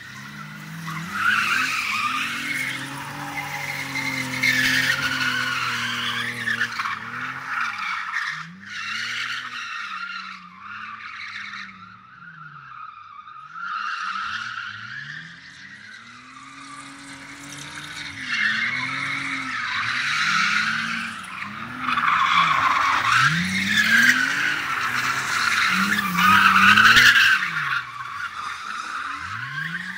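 BMW drift cars' engines revving up and down again and again as the cars slide, with tyres squealing on the concrete throughout. The sound eases off for a few seconds near the middle and is loudest towards the end.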